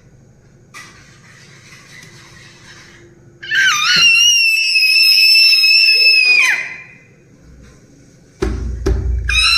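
An 11-month-old baby girl letting out one long, very high-pitched squeal of about three seconds, wavering as it starts and sliding down as it ends. Near the end there is a loud low bump or rumble, likely handling of the phone.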